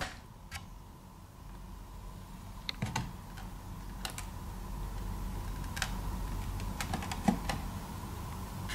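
Scattered light clicks and taps of hard plastic from the small RC truck's body and chassis being handled and turned over, a few at a time, over a faint steady hum.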